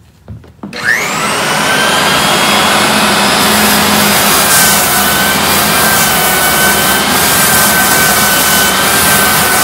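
Belt-driven Lagler Flip floor edger switched on under a second in, its motor whine sweeping quickly up as it spins to speed. It then runs loud and steady with a high whine while its sanding disc cuts along the edge of the hardwood floor.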